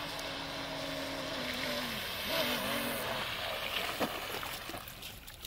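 Twin electric motors of an Oxidean Marine Gen 1.5 Animal RC boat whining at speed, steady at first; about two seconds in the pitch wavers and dips as the boat slows and turns, and the whine fades out near the end.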